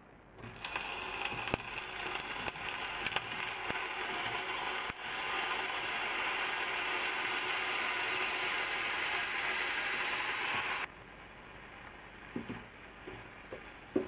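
Seafood mix of shrimp, squid and octopus sizzling and crackling in hot olive oil in a frying pan as it goes in. The sizzle stops abruptly about eleven seconds in, and a few light taps of tongs against the pan follow.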